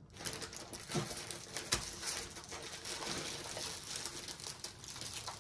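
Small plastic bags of resin diamond-painting drills rustling and clicking as they are shuffled on a tabletop, with a sharper knock under two seconds in.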